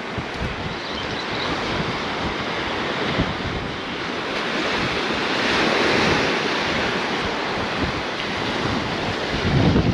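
Ocean surf washing onto the beach, with wind buffeting the microphone. The wash swells to its loudest around the middle and then eases off a little.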